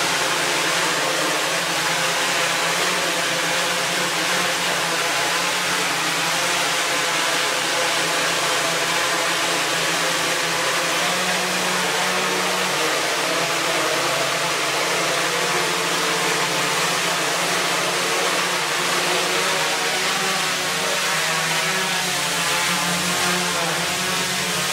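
Quadcopter's electric motors and propellers running in a hover: a steady whirring hum with several tones that shift slightly in pitch as the motors adjust.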